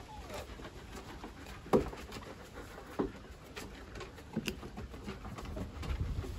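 Shepherd-husky mix dogs and puppies playing on a wooden deck: scattered clicks and knocks of paws and claws on the boards, the sharpest about two seconds in. A low rumble builds near the end.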